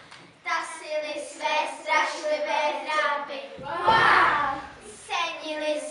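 A group of children singing together in rhythm, with a loud, noisy group shout about four seconds in.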